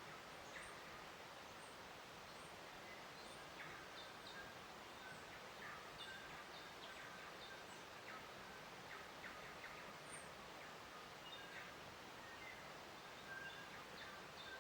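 Faint nature soundscape: many short bird chirps and calls scattered over a steady soft hiss, with thin high peeps every second or so in the first half.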